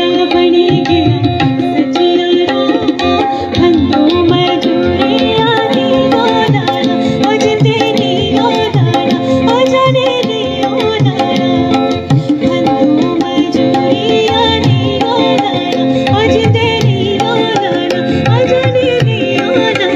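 Live Indian folk music: a woman singing, accompanied by tabla drumming and acoustic guitar.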